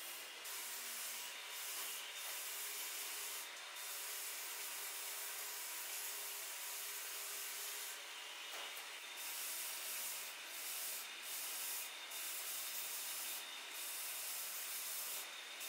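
Motor-driven abrasive belt grinder running steadily with a faint constant whine, as steel surgical scissor blades are pressed against the belt. About ten short, harsher rasps come each time a blade meets the belt.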